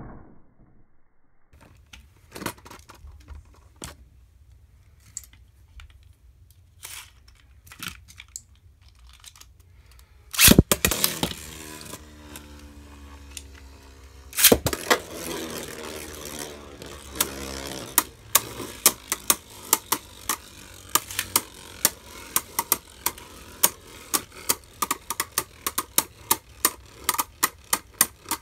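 Two Beyblade Burst tops, Arc Bahamut and Maximum Garuda, spinning in a clear plastic stadium, with occasional light clicks of contact at first. About ten seconds in and again around fourteen seconds there are loud clatters. For the last ten seconds the tops knock together in a steady clicking, about twice a second.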